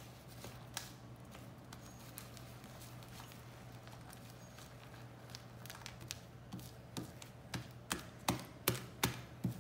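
Sticky glue-and-shaving-foam slime being kneaded and pulled apart by hand, giving wet clicks and pops as it sticks and lets go. The pops come louder and about every half second in the last few seconds. The slime is still stringy, only starting to set.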